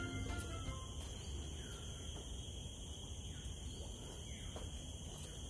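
Background song music cutting off in the first moment, then quiet outdoor ambience: a low rumble, a steady high-pitched whine and a few faint falling chirps.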